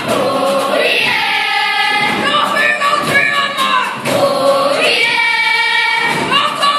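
A children's kapa haka group singing together in unison, long held phrases that slide up and down in pitch.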